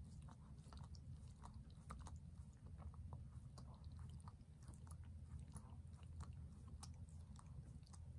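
A Shih Tzu chewing and gnawing with its head down at its front paws: faint, irregular small clicks and crunches, several a second, over a low room hum.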